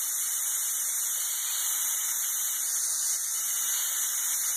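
Steady hiss of steam venting from a large pressure canner with its 5-pound weighted regulator still on: the canner is still under pressure with the heat just turned off.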